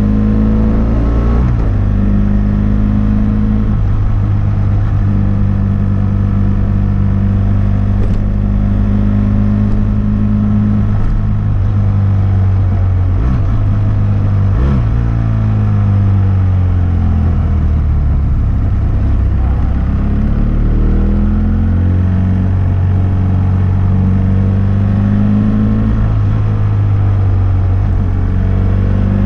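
A 2006 BMW F800S's parallel-twin engine running through a GPR Furore Nero exhaust with dB-killer while riding, holding steady revs for long stretches. In the second half its pitch dips and climbs again with throttle and gear changes.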